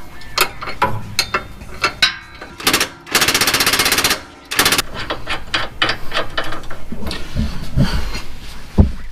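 Cordless impact wrench hammering for about a second midway, breaking loose the bolt of a Jeep Wrangler JL's rear track bar, among scattered metallic clicks and clanks of tools on the axle bracket.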